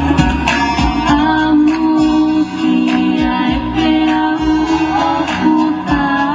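Music with a singer over plucked guitar and a steady beat.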